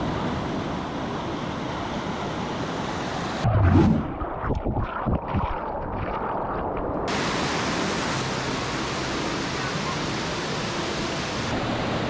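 Mountain waterfall rushing steadily down rock slabs. About three and a half seconds in, the sound turns muffled for a few seconds, with a few loud low thuds, as water washes over the camera's microphone, then the open rush comes back.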